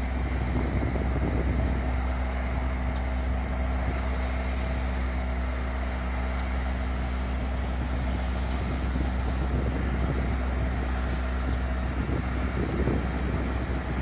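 Distant asphalt paving machinery (paver, the hopper that feeds it, and dump trucks) running steadily: a constant low diesel rumble with a steady hum over it.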